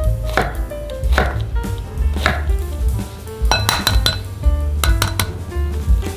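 A kitchen knife slicing through shiitake mushrooms onto a wooden cutting board, three crisp strokes about a second apart, then a quick cluster of clinks as an egg is tapped against a glass mixing bowl, with background music throughout.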